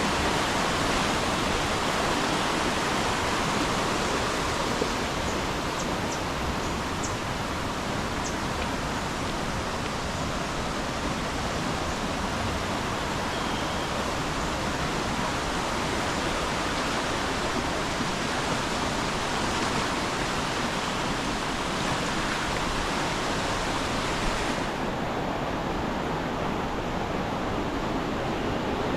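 Steady rush of flowing river water, an even noise with no break, whose hiss turns duller about 25 seconds in. A few faint high ticks sound over it about six to eight seconds in.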